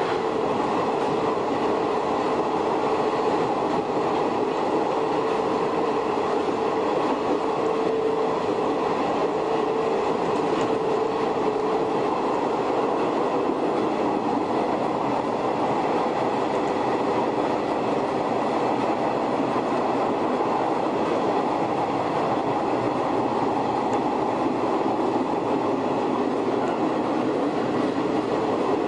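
Shin-Keisei 100-series electric train with nose-suspended traction motors running along the line, heard from inside the car: a steady growl of motor and gears over wheel-on-rail noise. A held whine in it fades about twelve seconds in.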